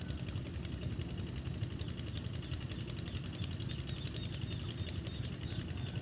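A small engine running steadily, a low rumble with a fast, even clatter.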